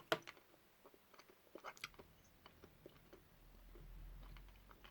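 Faint chewing of a soft chewy sweet, with scattered small wet mouth clicks and a faint low hum in the second half.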